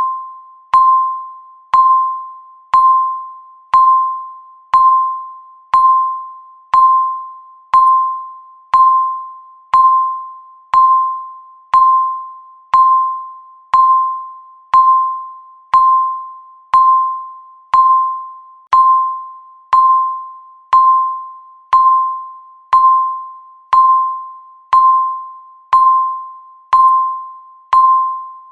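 Countdown timer beep sounding once every second: a short single-pitch electronic tone that starts sharply and fades away before the next one, in a steady even rhythm.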